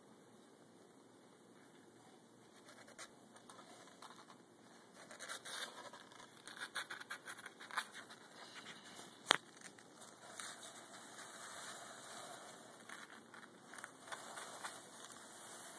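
Faint scratching and scraping of kittens' claws on a cardboard box as they shuffle about inside it, with scattered light clicks and one sharp click about nine seconds in.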